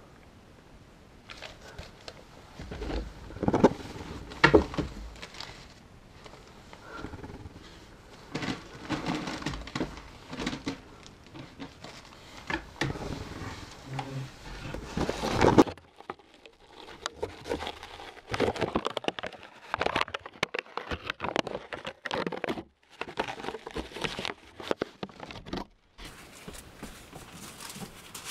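Sheets of newspaper rustling and crackling as they are handled close by, with a few sharp knocks.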